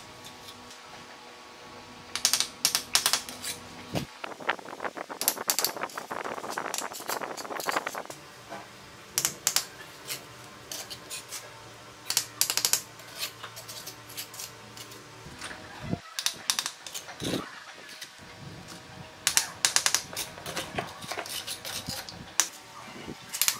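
Steel bricklaying trowel tapping and scraping on clay bricks and wet mortar as bricks are set and mortared: bursts of sharp clicking taps, with a longer stretch of scraping a few seconds in.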